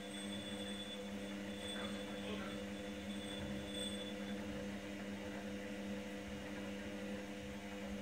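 Candy GrandO washing machine drum tumbling a load of towels on a 90° cottons wash, with the motor's steady hum. A faint high whine stops about four seconds in.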